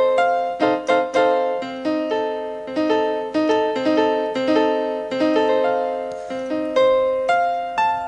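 Piano chords from a keyboard: an F major triad (F, A, C) struck over a held low C, moving through its inversions and restruck about every half second to a second, giving a C minor 13 sound.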